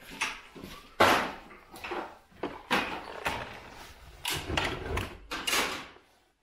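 A series of clunks, knocks and rattles from the compact tractor's seat and hydraulic fittings being handled and moved, the loudest about a second in.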